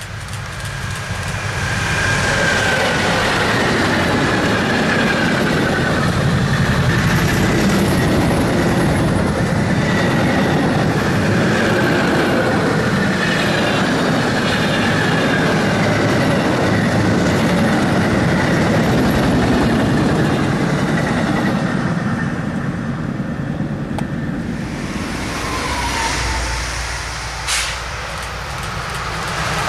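Electric locomotive and a long train of double-deck car-transporter wagons passing close at speed: loud rolling wheel noise and rail clatter, with high whining tones sliding down in pitch as it goes by. The sound drops away about three-quarters of the way through, and another train is heard approaching, with a sharp click shortly before the end.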